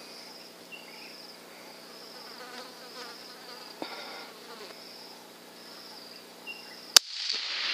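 Insects buzzing in high pulses about once a second. About 7 s in, a single sharp crack of a .243 rifle shot, followed by a short fading echo.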